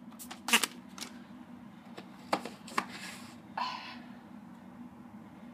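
VHS tapes and their cases being handled: a few sharp clicks and rustles in the first second and again between two and three seconds in, then a longer rustling scrape a little after three and a half seconds, over a faint steady hum.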